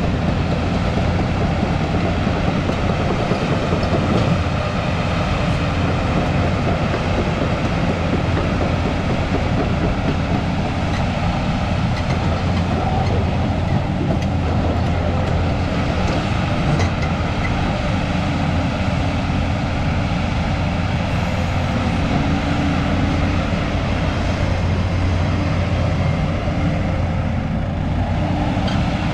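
JCB 215LC crawler excavator's diesel engine running steadily while the boom, arm and bucket are worked by its hydraulics.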